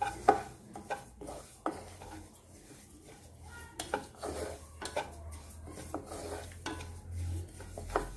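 Wooden spatula stirring split yellow mustard seeds as they dry-roast in a kadhai: irregular scrapes and knocks of the spatula against the pan, with the dry grains rustling as they are pushed around.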